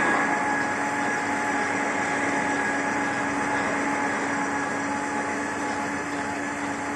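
Truck brake drum lathe running with its automatic power feed engaged: a steady machine hum with a steady whine over it.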